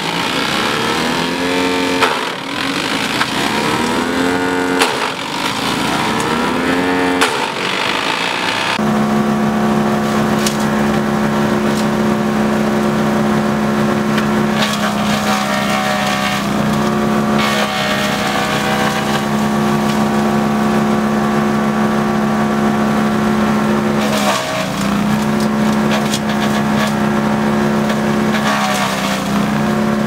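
Agrinova Zakandra drum wood chipper's engine running at full throttle while chipping branches. Its speed sags and recovers each time wood bites into the cutting drum, every two seconds or so at first. It then holds a steady note, with two brief dips as brush is fed in.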